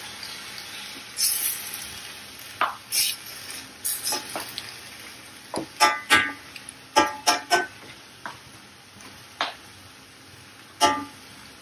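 Steel spoon stirring chicken pieces in a stainless steel pan, scraping and giving irregular sharp, ringing clinks against the metal, several close together in the middle, over a faint sizzle.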